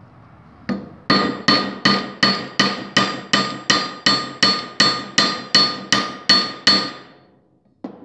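Hammer bradding a cut-off copper rivet down over its burr on a leather stirrup strap, backed by a steel trailer-hitch ball mount: about seventeen quick, even metallic blows, nearly three a second, each with a short ring. The blows dome the rivet end and set the rivet. One more knock comes just before the end.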